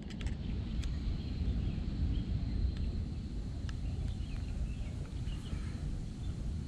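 Outdoor wind rumbling steadily on the microphone, with faint bird chirps and a thin, steady high tone behind it.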